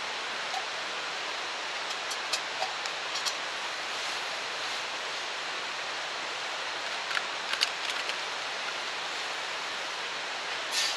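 Steady rushing hiss with a few light clicks and knocks as a steel mug is set on a small wood-burning stove and a water bottle is handled.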